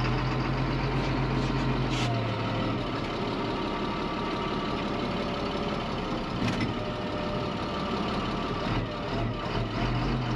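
A tow truck's engine running at low speed, heard from inside its cab as the truck creeps forward in first gear. Its steady low note changes about two seconds in and comes back near the end, with a couple of faint clicks.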